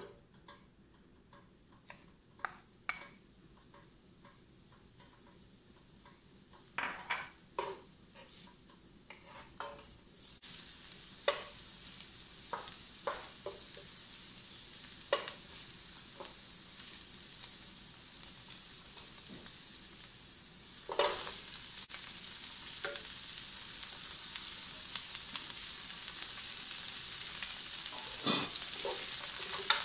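Green onions and then bok choy stems stir-fried in hot oil in a nonstick pan with a wooden spatula. The spatula knocks and scrapes on the pan throughout. The sizzling turns loud about ten seconds in and stays steady.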